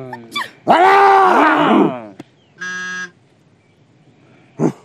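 A drawn-out vocal cry with wavering pitch, then a short steady electronic buzzer-like tone about half a second long, of the kind added in editing as a comedy sound effect.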